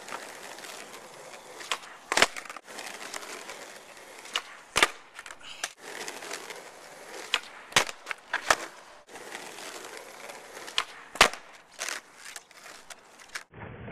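Skateboard wheels rolling on asphalt, broken by about five loud, sharp cracks of the board: tail pops and landings of inward heelflip attempts.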